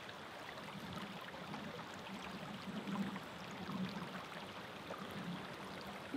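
River water running steadily, a soft even rush with a few faint gurgles.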